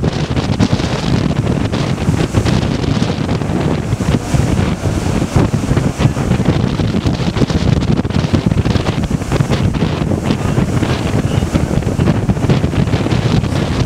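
Strong, gusty wind buffeting the microphone with a low rumble, over heavy storm surf breaking on the beach and a rock jetty. The wind and surf are driven by Hurricane Sandy passing offshore.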